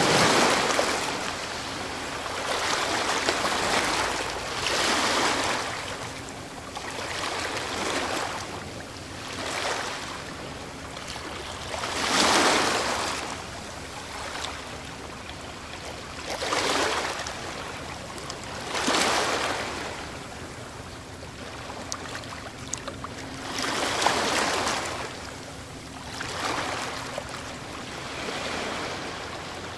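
Ocean waves breaking, a series of hissing surges that swell and fade every few seconds, the strongest near the start and about twelve seconds in.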